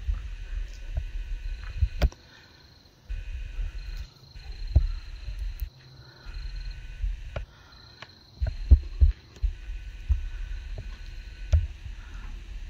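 Handling noise and footsteps on the camera's microphone: low rumbling and dull thuds that start and stop, with scattered sharp clicks. A faint, thin high tone comes and goes behind them.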